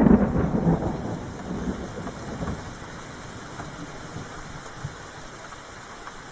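Thunderstorm ambience: a roll of thunder at the very start that rumbles away over the first two seconds or so, over steady falling rain.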